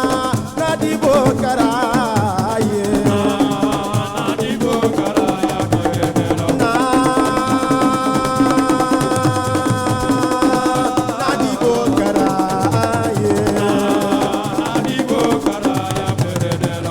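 Assiko music: drums playing a dense rhythm under a wavering sung melody, with one long held note in the middle.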